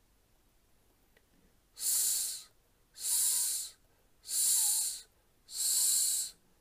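A man's voice hissing a drawn-out 's' four times, each about two-thirds of a second long and a little over a second apart, starting about two seconds in. It is the soft S sound, spelled 'ps' as in 'psychology', sounded out for pronunciation practice.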